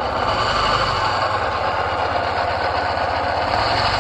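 2008 Suzuki Burgman 400 scooter idling with a steady mechanical whirring noise from the rear transmission hub, and a faint high whine that rises slightly in pitch near the end. The noise comes only at idle or at low rear-wheel speed, which the owner takes for a failing idler or throwout-type bearing.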